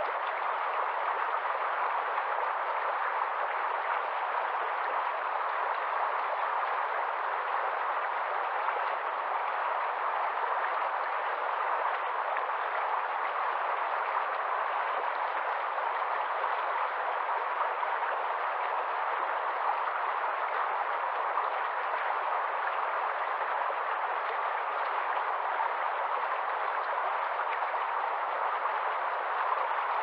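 Shallow rocky stream rushing over stones and a small cascade: a steady, even rush of water.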